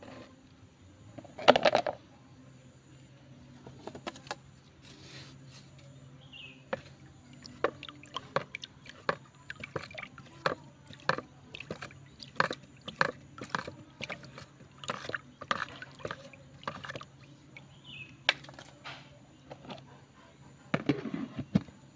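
A wooden stick stirring fermenting rice-water in a black plastic bucket: the liquid sloshes while the stick knocks against the bucket's sides about once or twice a second. About a second and a half in there is a single loud plastic clatter from the bucket's lid.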